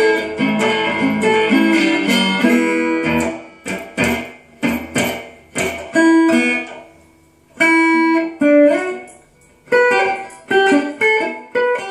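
Metal-bodied resonator guitar (dobro) fingerpicked in a blues style and heard through an amplifier. It plays a busy run of plucked notes and chords, then short phrases of single sharp plucks separated by brief pauses, with one note bent upward near the end.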